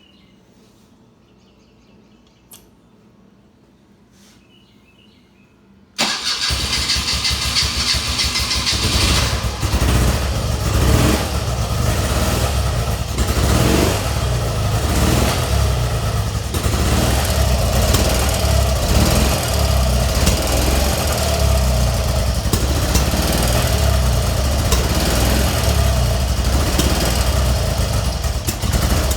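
BMW R65 flat-twin (boxer) motorcycle engine starting about six seconds in, after a short click, then running unevenly on choke and throttle with irregular pops. The owner suspects it is running very lean, with the left side popping.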